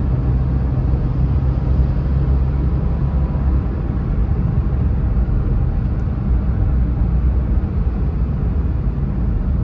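Steady low rumble of road and engine noise inside a moving Suzuki car's cabin at highway speed.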